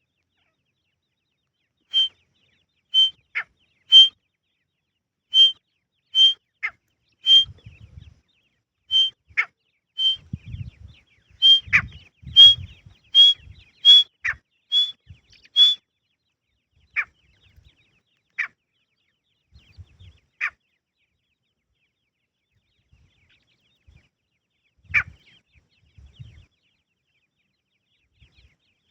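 Grey francolin calling: a run of short, sharp high notes about once a second, creeping slightly higher in pitch, mixed with lower down-slurred notes. It thins out to a few scattered notes and stops about two-thirds of the way through.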